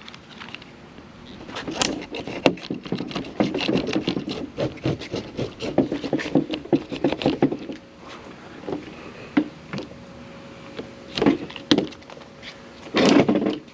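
Spline roller pressing the rubber spline and screen mesh into the channel of an aluminum window-screen frame: a rapid, irregular run of clicks and crackles. It then goes quieter, with a few scattered clicks and a brief louder noise near the end.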